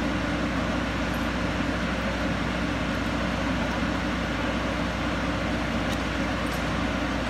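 Pratt & Whitney Canada PT6A-60A turboprop being motored on its starter for a compressor wash: a steady, loud machine drone with a deep hum underneath.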